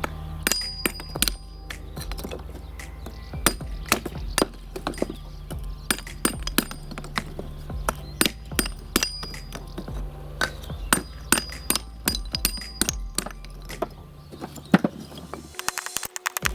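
Background music with a steady low bass line, over a run of irregular sharp knocks and clinks, several a second, some with a short ringing tone. The bass drops out near the end.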